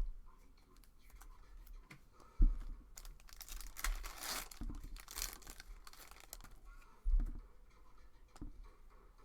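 A trading card pack's foil wrapper being torn open and crinkled, with two dull thumps on the table, about two and a half and seven seconds in.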